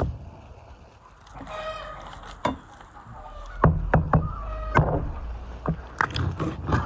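A large knife cutting through a raw goose carcass on a wooden board: several sharp knocks of the blade against the board, with short squeaky creaks of skin and joints giving way under it.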